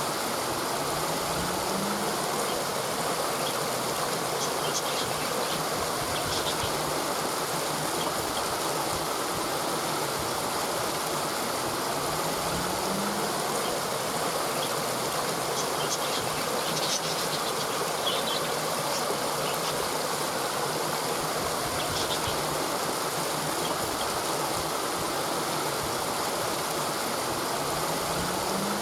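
Steady, unbroken rush of falling water from a waterfall. Faint high chirps come through now and then, and a faint low rising hum recurs three times.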